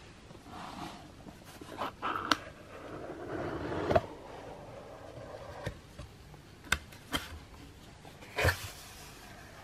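Cardboard box lid being worked loose and lifted off, card rubbing and scraping on card, followed by a few sharp taps and knocks as the box and its contents are handled.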